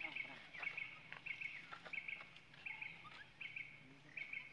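A bird calling over and over: a short, high double chirp repeated roughly every three-quarters of a second, with faint small taps and rustles between.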